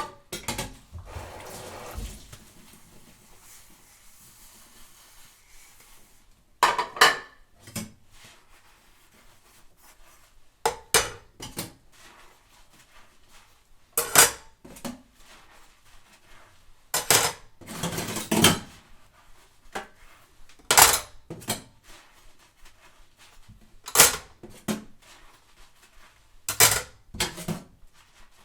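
Dishes, cups and glasses being washed by hand, knocking and clinking against each other. The clatters come in short separate bursts every second or few seconds, after a quieter start.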